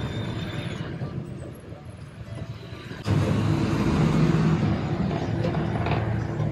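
Bus engine running and road rumble heard from inside the passenger cabin, getting suddenly louder about three seconds in.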